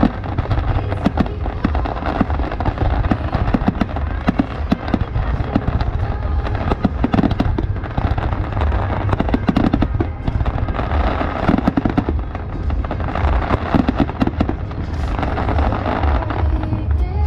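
Fireworks display: aerial shells bursting one after another in a dense, continuous run of bangs and crackles, over a constant deep low sound.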